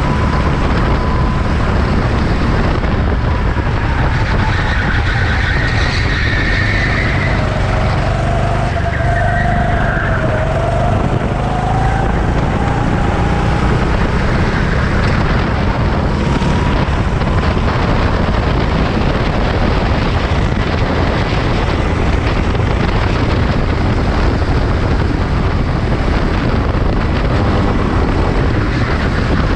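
Racing motorcycle engines over a steady loud rumble, with an engine's pitch rising and falling about a quarter of the way in.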